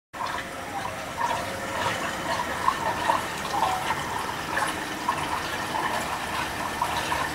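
Swimming pool water lapping and gurgling: a steady wash of moving water with small bubbling blips, starting abruptly just after the opening.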